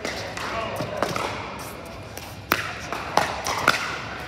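Pickleball paddles striking the plastic ball in a rally: three sharp pops in the second half, about half a second apart, with people's voices underneath.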